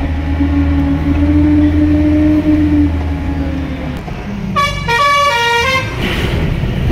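A vehicle engine humming steadily, then about four and a half seconds in a horn sounds a quick run of several different notes for about a second and a half.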